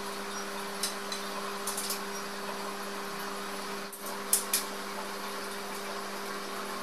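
Light metallic clicks and taps as small metal fasteners are fitted into the corners of a white steel-mesh rack frame: a few scattered clicks early, then two sharper, louder ones about four seconds in, over a steady low hum.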